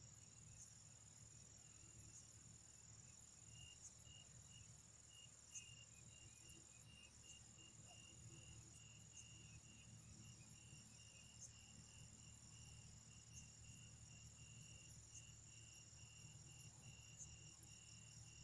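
Faint night insects, likely crickets: one keeps up a steady high trill, and from a few seconds in another chirps in a regular pulse about two to three times a second, over a low hum.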